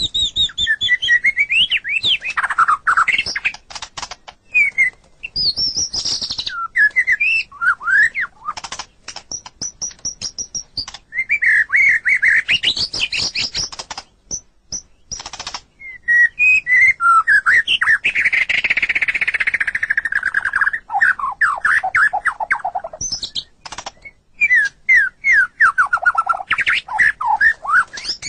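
White-rumped shama (murai batu) singing a varied song of loud, rich whistled phrases, fast trills and rising and falling notes, with bursts of sharp clicking between the phrases.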